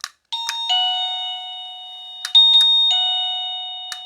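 Linbell battery-free wireless doorbell receiver playing its two-note ding-dong chime three times, each set off just after a sharp click. Each chime rings loud and slowly fades.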